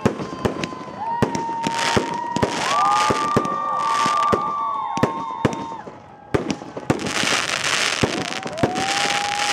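Fireworks going off: many sharp pops and crackles, two stretches of hissing, and several whistles held at a steady pitch for a second or more.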